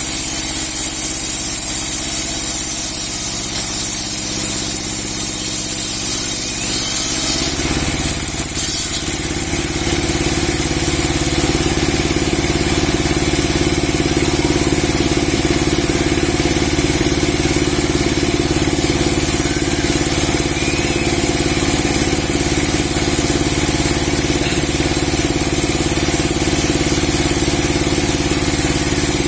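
Large 30 hp log sawmill machine with a 60 cm steel blade running steadily; about eight seconds in its sound grows louder and fuller and stays that way.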